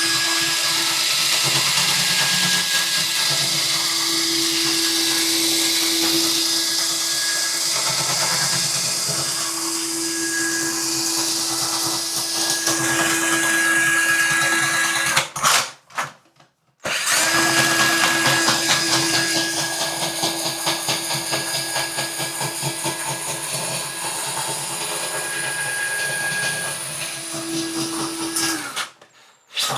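Ryobi cordless drain auger running steadily with a constant motor whine as its cable is worked back and forth in a clogged shower drain. It stops for a moment about halfway through, starts again, and cuts off shortly before the end.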